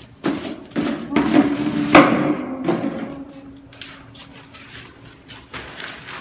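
A white plastic chair knocking and scraping on the floor as it is carried in and set down, a series of knocks with the loudest about two seconds in.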